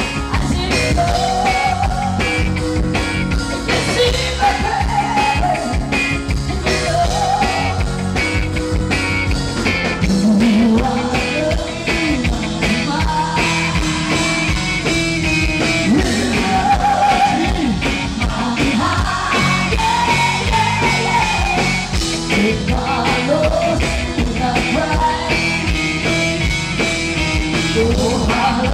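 Live rock band playing loud and steady, with electric guitar, bass, drums and keyboards behind a female lead vocal sung into a microphone.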